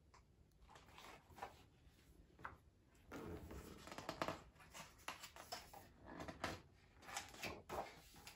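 Faint rustling and flapping of paper as the pages of a large picture book are turned and leafed through. There are quick page turns throughout, busiest in the second half.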